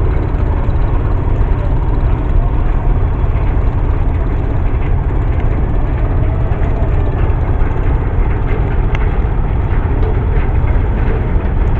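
Steady deep rumble of a large passenger launch's engines running close by, with a noisy haze and no changes in pitch.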